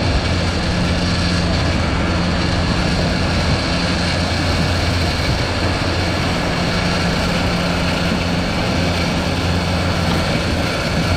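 A fishing boat's engine running steadily while trolling, a continuous low drone over an even hiss.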